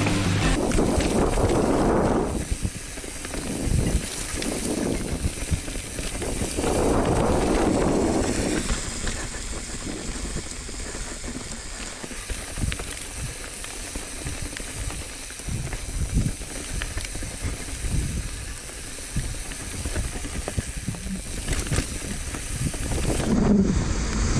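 Mountain bike riding down a wet, rocky trail: tyres hissing over wet ground while the bike knocks and rattles over rocks and roots.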